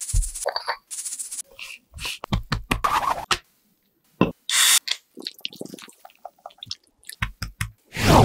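Close-miked food-prep sounds in quick succession: dry seasoning shaken over raw chicken legs in a stainless steel bowl, then a beer can's tab cracked open with a short fizzing hiss about halfway through. This is followed by small splashing and handling noises and a heavier knock near the end as a bowl is moved on the table.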